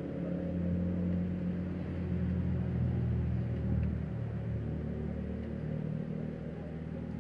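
A low, steady engine rumble whose pitch shifts slightly, with no sharp sounds.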